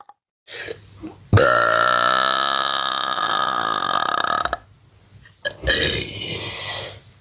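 A woman burping out loud: one long, drawn-out burp of about three seconds, then after a short pause a second, shorter burp.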